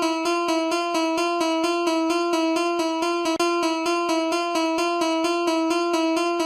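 Level crossing warning bell: a single bell-like tone struck over and over in quick, even succession, about four strikes a second, cutting off abruptly at the end.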